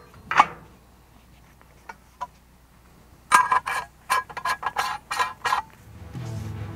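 Steel split-spoon sampler tube clinking and knocking against a metal rack tray as it is handled: one sharp click early, a couple of light ticks, then a run of ringing metallic clinks for about two seconds. Music fades in near the end.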